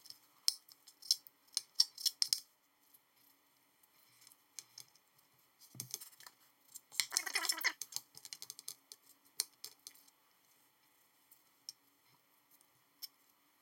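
Kitchen knife trimming fat from a raw crane thigh on a plastic cutting board: quick sharp clicks and taps of the blade on the board, a louder stretch of scraping about seven seconds in, then only scattered clicks.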